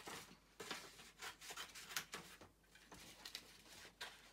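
Faint rustling and crackling of sheets of paper being handled and pulled apart, in many short, irregular strokes.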